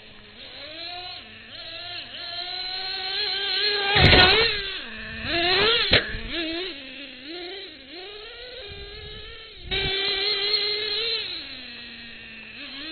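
Traxxas Revo RC monster truck's small nitro engine buzzing and revving up and down, dropping back to a steady idle near the end. Two loud knocks come about four and six seconds in.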